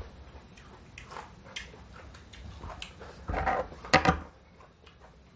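Close-up eating sounds: crisp bites and wet chewing of raw ambarella (kedondong) with chili sambal, a string of short crackles and mouth clicks. The loudest stretch, a burst of mouth noise, comes about three and a half to four seconds in.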